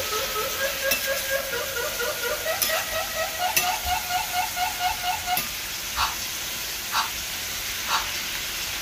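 Cubed pork and onions sizzling in a stainless-steel pan while a metal spoon stirs them. In the first five seconds there is a fast run of short squeaky tones, about five a second and creeping up in pitch, then sharp single knocks about once a second.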